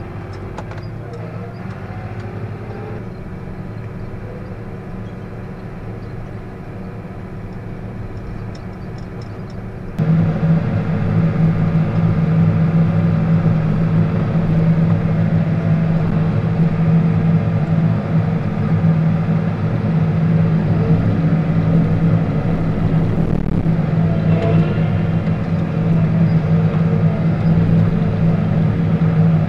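John Deere tractor's diesel engine running while it plows snow, heard from inside the cab. About ten seconds in it abruptly gets louder and settles into a strong, steady hum.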